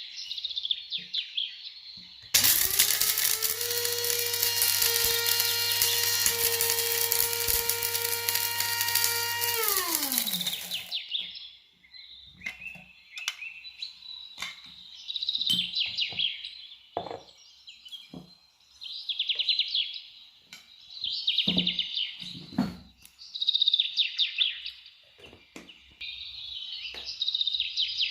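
A kitchen appliance's electric motor starts about two seconds in, spins up to a steady speed, runs for about seven seconds, then winds down and stops. Birds chirp in quick trills throughout, with scattered knocks and clicks.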